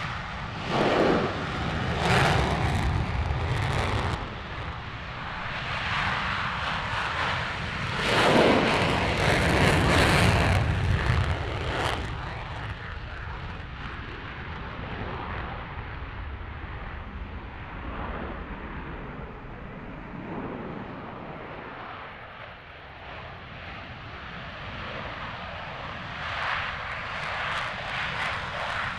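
Twin afterburning turbofan engines of Su-35S fighter jets at takeoff thrust, a loud jet rumble. It swells about a second in and again for several seconds around the middle of the first half, eases to a steadier rumble, then rises again near the end as a jet rolls along the runway.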